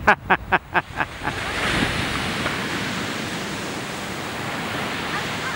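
Ocean surf washing on the beach, with wind buffeting the microphone in a steady rush. In the first second a quick run of about six short, sharp sounds stands out above it.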